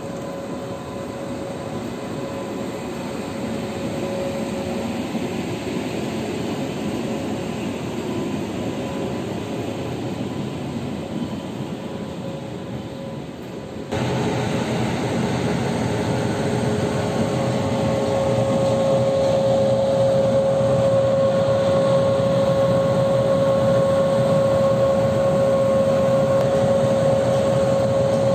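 Indian Railways WAP7 electric locomotive running at low speed toward the coaches to couple on. It gives a steady electrical whine over a machinery hum, which gets sharply louder and closer about halfway through and then holds steady.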